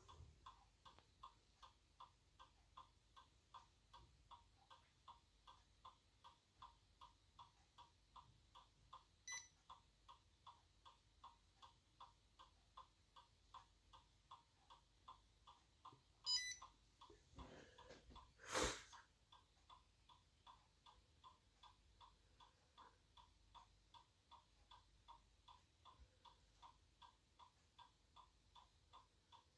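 iPod's built-in piezo clicker beeping in DFU mode: faint, short, evenly spaced beeps, a little over two a second, like a microwave's beep. A few louder clicks or knocks stand out about a third of the way in and twice near the middle.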